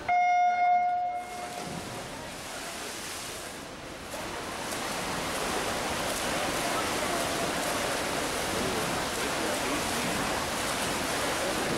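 Electronic race-start beep sounding once for about a second as the swimmers leave the blocks, followed by the steady splashing of swimmers racing down the pool, which grows louder about four seconds in.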